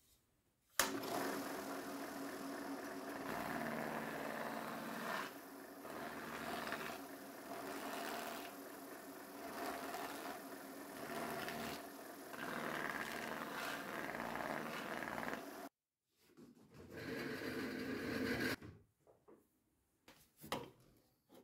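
Drill press spinning a homemade flap wheel made of old sandpaper strips, with a wooden board pressed against it to brush and texture the surface so the grain stands out; the motor hum runs under a scratchy sanding noise that swells and dips as the board is worked. It stops abruptly, a shorter stretch of the same follows, and a few light knocks come near the end.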